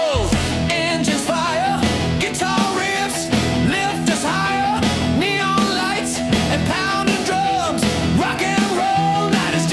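Southern rock music: a band with guitars and drums playing, with a lead line that wavers and slides in pitch.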